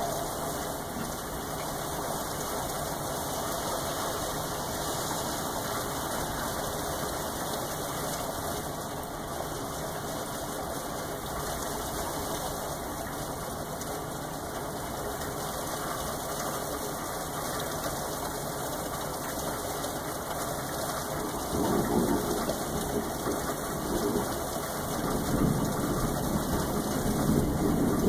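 Steady rain falling, with thunder rumbling in from about three-quarters of the way through in several rolling swells that grow louder toward the end.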